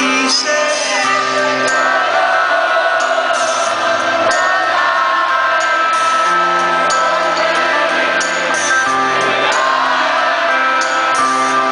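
Live rock band playing a slow song, with a male lead singer over sustained bass notes, recorded from within the stadium crowd.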